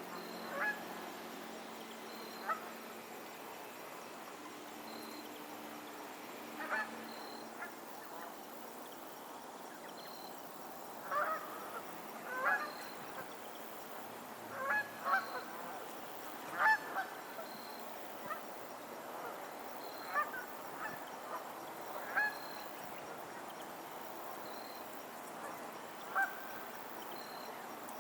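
Geese honking on a lake: short, scattered calls, a few at a time, coming closer together in a busier stretch a little before the middle, over a steady background hiss.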